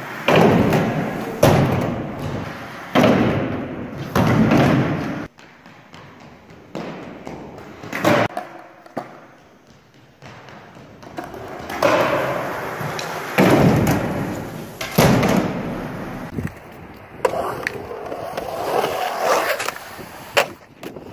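Skateboard wheels rolling on a plywood ramp and a hard floor, broken by repeated loud bangs and slaps of the board landing and hitting the ground, each echoing briefly.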